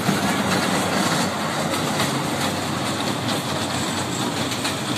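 Small amusement-park ride train running along its narrow-gauge track, a steady rolling rattle of the cars on the rails.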